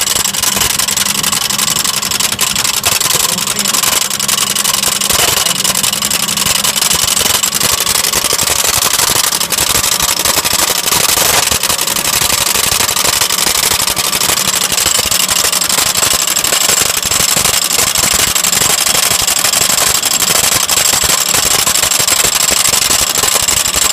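Lexus engine running at idle with a fast, steady rattle over its hum: the unexplained rattling noise the owner is asking about.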